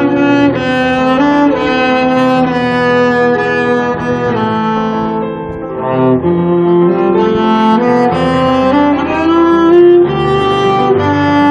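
Cello bowed live, playing a slow melody of long held notes; it softens briefly about five seconds in, then swells again.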